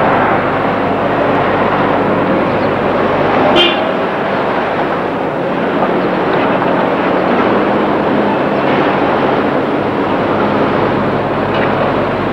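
Steady street traffic noise, with a short high horn toot about three and a half seconds in.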